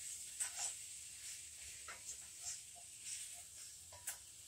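Faint sizzling of chicken and sweet potato cooking in a pot, with a few soft clicks and scrapes from a wooden spoon stirring and scraping the bottom of the pan.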